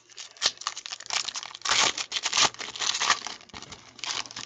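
Foil trading-card pack wrapper crinkling as it is torn open by hand: an irregular run of crackles, loudest around the middle.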